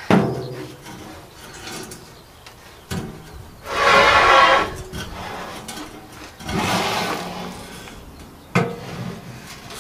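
Stainless steel sheet scraping as it is dragged out over a van's load floor, with two long scrapes about four and seven seconds in. Sharp metal knocks come at the start, about three seconds in, and shortly before the end as the sheet is set onto a steel wheelbarrow.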